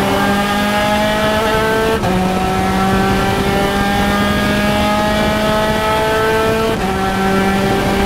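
Spec Racer Ford Gen3's four-cylinder engine at full throttle, heard from the cockpit, pulling hard with its pitch climbing in each gear. It upshifts twice, about two seconds in and again about five seconds later, the pitch dropping sharply at each shift.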